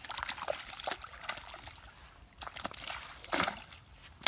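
A hooked fish thrashing and splashing at the water's surface as it is pulled out on a line, several separate splashes a fraction of a second to a second apart.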